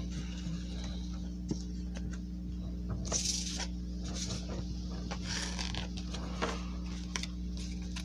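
Trading cards and cardboard packaging being handled: light clicks and soft rustles, with two longer rustling swishes about three and five and a half seconds in, over a steady low hum.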